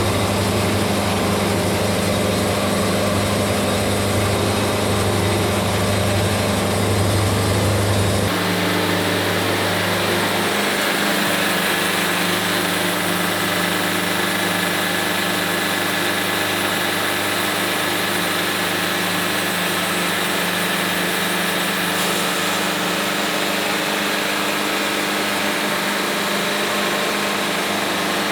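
Wood-Mizer LT70 sawmill's engine running steadily. Its tone changes abruptly about eight seconds in, going lighter, with more high hiss after the change.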